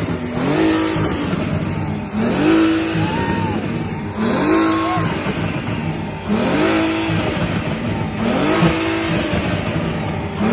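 Volkswagen VR6 narrow-angle six-cylinder engine revved hard through its exhaust about five times, roughly two seconds apart. Each rev rises sharply in pitch and then drops back.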